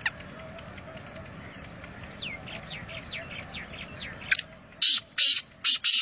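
Black francolin giving its loud, harsh, rasping call: about five grating notes in quick succession in the last two seconds. Before it come a sharp single note at the start and a run of fainter, quick falling chirps.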